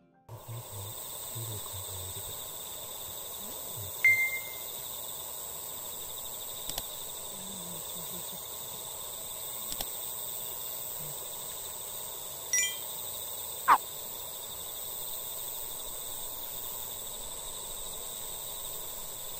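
Evening insect chorus, a steady high-pitched drone, with a few brief tones and clicks over it; the loudest is a quick downward-sweeping chirp about 14 seconds in.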